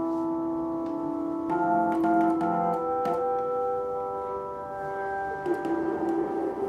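Handheld wooden sound-art boxes giving off layered, sustained drone tones that blend into an organ-like chord, with tones dropping out and new ones coming in about a second and a half in and again around three seconds, and a few faint clicks.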